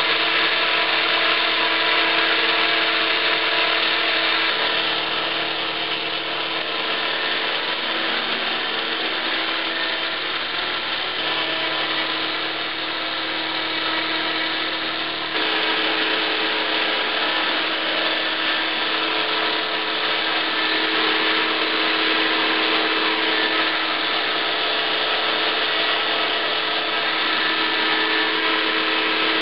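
HK 450 electric RC helicopter running on the ground with its rotor turning: a steady whine of the brushless motor and drive gears over rotor noise, held at one speed during a tail-rotor setup test. About halfway the sound steps slightly louder.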